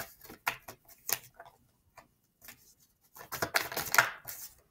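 Tarot cards being shuffled and drawn from the deck: a run of light clicks and taps, then a denser flurry of card noise from about three seconds in.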